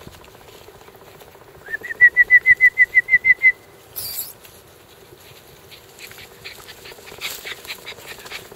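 A bird calling: a fast run of about a dozen short, clear notes on one pitch, lasting under two seconds. Near the end, a puppy pants and snuffles close to the microphone.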